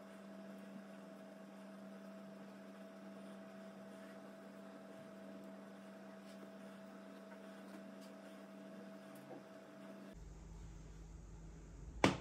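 Steady electrical hum of two even tones over faint background hiss, which changes abruptly about ten seconds in; a sharp click near the end.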